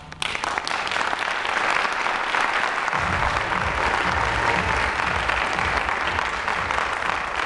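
Theatre audience applauding, breaking out suddenly as the music ends and continuing steadily.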